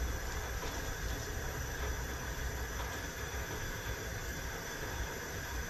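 Coleman Dual Fuel camp stove burner running with a steady hiss and a low rush underneath.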